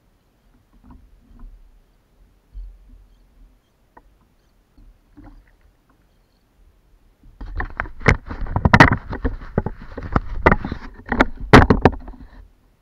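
Faint knocks, then from about seven seconds in a loud, rapid run of knocks and rattles on the plastic kayak for about five seconds, as a hooked fish is hauled up and thrashes against the hull.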